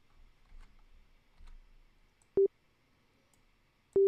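Pure, sine-like electronic synth tone from a software instrument in a digital audio workstation: one short blip about two and a half seconds in, then a held note starting near the end. Faint mouse clicks in between.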